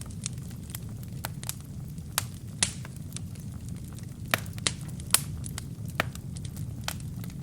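Wood fire burning in a fireplace: a steady low rumble of flames with irregular sharp crackles and pops from the burning wood and kindling, several louder pops in the middle.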